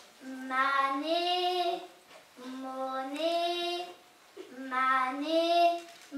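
A girl singing unaccompanied into a microphone: three short phrases, each starting low and stepping up to a held higher note.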